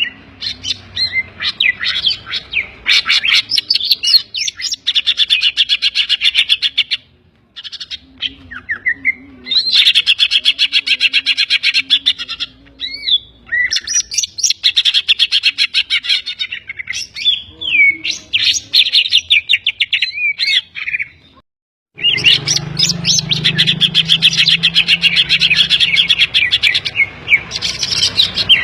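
Green leafbird (cucak ijo) singing hard: fast stuttering trills and chattering phrases broken by short whistled glides, with mimicked calls of other birds (kapas tembak and kingfisher) worked into the song. The song stops dead briefly twice, about seven and twenty-one seconds in.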